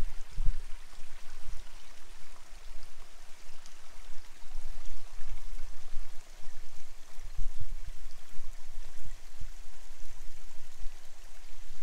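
Steady rushing of a stream, with irregular low thumps.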